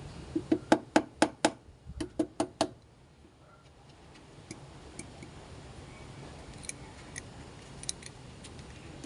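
A quick run of about ten sharp clicks in under three seconds, then a few faint ticks. These are hand tools at work on the battery terminal as it is reconnected, consistent with a ratchet wrench tightening the clamp.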